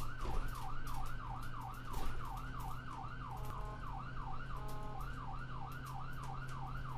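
A siren in a fast yelp, wailing up and down about three times a second without a break, over a steady low hum.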